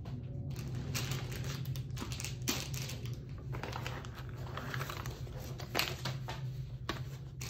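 Rustling with irregular light clicks and taps: hands handling the contents of a foam-lined cardboard gun box. A steady low hum runs underneath.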